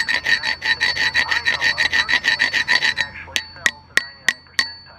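Rapid back-and-forth scraping on a ringing mild steel plate, about eight strokes a second, stopping about three seconds in. Then about five sharp metallic taps that ring.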